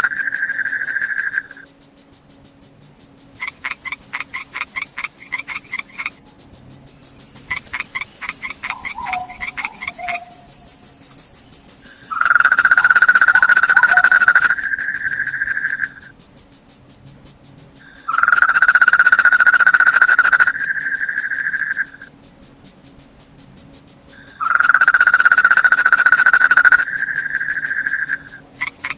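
Night insect chorus: crickets chirping steadily in a high pulsing trill, joined roughly every six seconds by a lower, louder call lasting about three seconds, with two shorter pulsed trills in between near the start.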